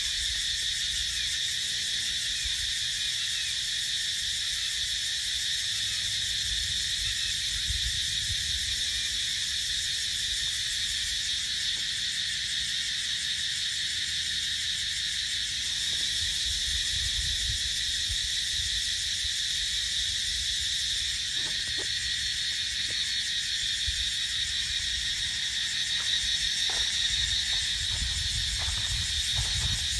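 A dense chorus of many cicadas buzzing steadily: a continuous, unbroken high shrill hiss. A faint low rumble lies underneath, with a few faint ticks near the end.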